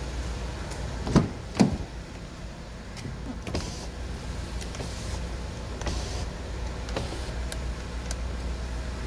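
The driver's door of a car being unlatched and swung open: two sharp clicks about a second in, followed by smaller clicks and handling noises, over a steady low hum.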